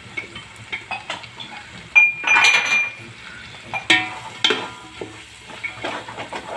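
Metal ladle clanking and scraping against a large aluminium cooking pot as chopped vegetables are stirred into a thick masala, with a louder scrape that rings briefly about two seconds in.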